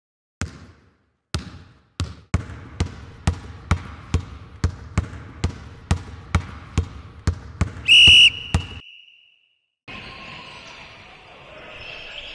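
Basketball dribbling on a hard floor, the bounces widely spaced at first and then about two a second, ended by a loud whistle blast about eight seconds in. After a second of silence, gym ambience.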